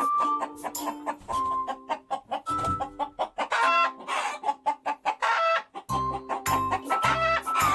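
Chickens clucking in short sharp bursts over upbeat background music; a deep pulsing bass line comes in about six seconds in.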